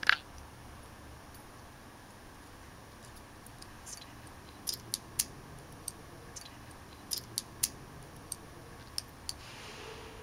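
Small, sharp clicks and ticks at irregular intervals from a bobbin and bobbin case being handled and threaded, with a louder click at the very start.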